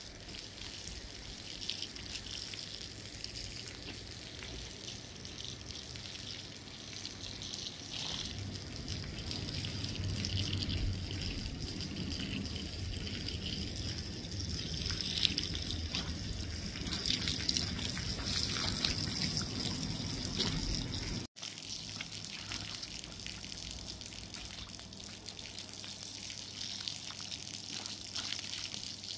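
Running water throughout. In the last part, water from a garden hose splashes onto a soaked blanket being trodden underfoot on a concrete slab.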